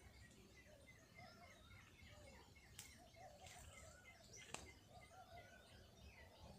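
Faint chirping of birds: many short, wavering chirps repeated throughout, with two sharp clicks, about 3 and 4.5 seconds in.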